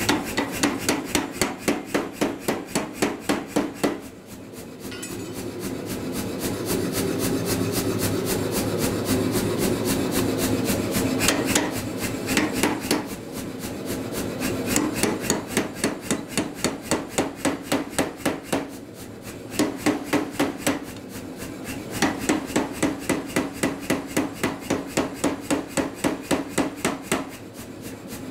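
Say-Mak air power hammer punching the eye through a hot steel hammer blank, striking the punch in runs of rapid blows, about five a second. Between the runs only the machine's steady running hum is heard.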